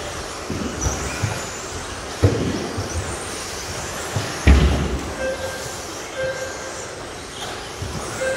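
Radio-controlled model trucks racing on a carpet track: small motors whining up and down in pitch over the rush of tyres, with two heavy thumps from trucks landing or hitting the barriers, the second about halfway through and loudest. A few short beeps sound in the second half.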